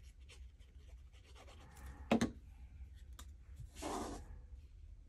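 Paper-crafting handling sounds: a liquid glue applicator tip scratching over cardstock, a sharp knock about two seconds in, then a short rub as cardstock panels are pressed down onto the card near four seconds in.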